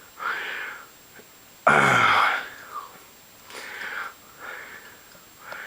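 A man breathing heavily close by, with several audible breaths and one loud exhaled grunt about two seconds in.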